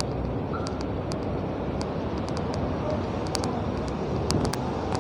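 Steady road-traffic noise with a low rumble, with scattered light clicks over it.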